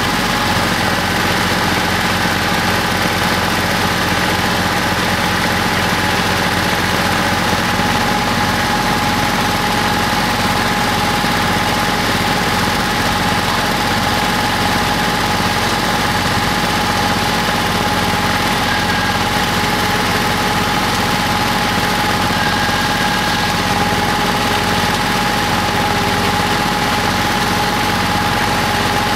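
An engine idling steadily, a low running note with a constant high whine above it.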